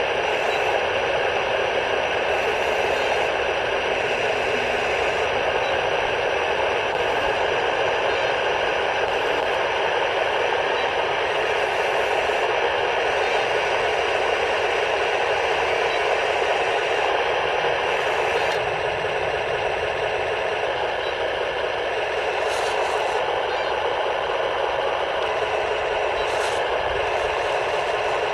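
Steady simulated engine rumble from a 1:16 RC Pershing tank's sound unit, played through its small built-in speaker, so that it has no real bass. A few faint clicks come through near the end.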